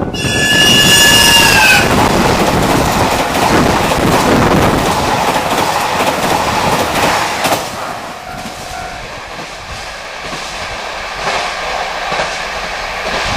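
A train sounds its horn for about two seconds, the pitch dropping as it goes by, then rushes past with its wheels clattering on the rails; the loud passing noise falls away after about seven and a half seconds.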